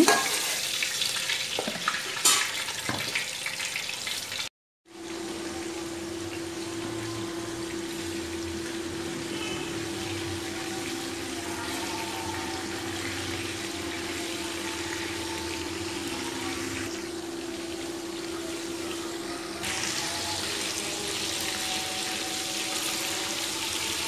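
Chicken kofta deep-frying in hot oil in an aluminium pot: a steady sizzle, with a few clinks of a metal slotted spoon at first. The sound cuts out briefly about four and a half seconds in, then the sizzle continues as the balls are stirred, with a faint steady hum under it.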